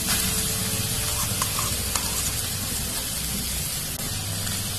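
Vegetable stuffing frying in oil in a steel kadai, a steady sizzle, with a few light clicks as grated boiled potato goes in.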